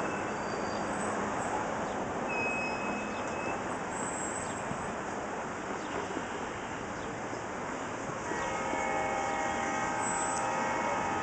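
Diesel freight train rolling past with a steady rumble. About eight seconds in, the locomotive's multi-note air horn sounds one steady chord that lasts about three seconds.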